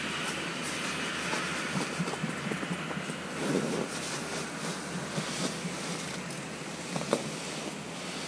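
Light rustles and small clicks from handling a small winter ice-fishing jigging rod, with one sharper click about seven seconds in, over a steady rushing background noise.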